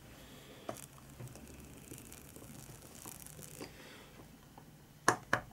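Small screw being turned into a model armour part with a precision screwdriver: faint scraping and small clicks as it goes in, then two sharp clicks near the end.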